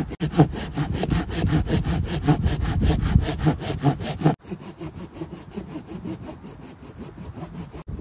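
A hand saw cutting wood in fast, rhythmic back-and-forth strokes, several a second; the sawing is quieter after a break about halfway through.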